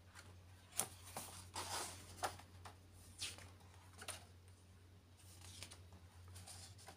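Picture book being opened and its pages turned by hand: a series of short, faint paper rustles and flaps, busiest in the first few seconds, over a low steady hum.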